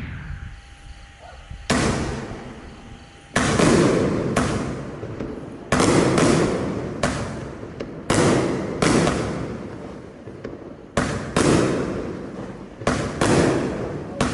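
A 25-shot, 30 mm firework battery firing in sequence. More than a dozen sharp bangs come roughly one a second, starting about two seconds in, each trailing off in a fading rush of noise.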